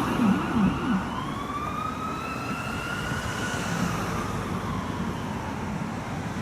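Emergency siren in an EAS-style alarm: a fast yelp sweeping up and down about two to three times a second, which changes about a second in to a slow wail that rises, holds and then sinks away, over a steady hiss.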